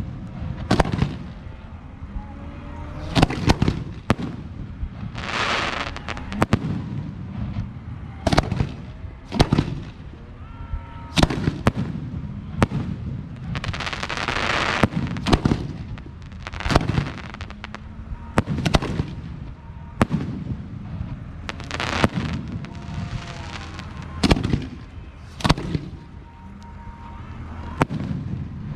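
Aerial fireworks show: a string of sharp bangs from shells bursting, roughly one every second or two, with two longer stretches of steady hiss near the start and in the middle.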